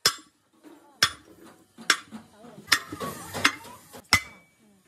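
Hammer blows on steel, six sharp ringing strikes a little under a second apart.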